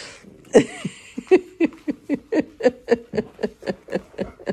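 A woman laughing in a long run of short, even bursts, about three a second, with some rustling early on.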